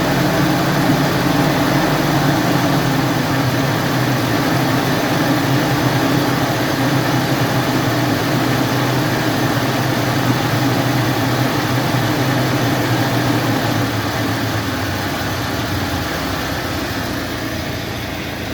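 UAZ Patriot's ZMZ-409 four-cylinder petrol engine being brought slowly down from raised revs toward idle, its pitch falling steadily. A timing-chain whirr runs under it, which the mechanic considers normal for a double-row chain.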